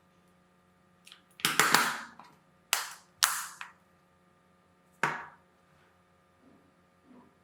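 A few sharp knocks and clicks of hard objects being handled: a clattering cluster about a second and a half in, the loudest part, then three more single knocks over the next few seconds.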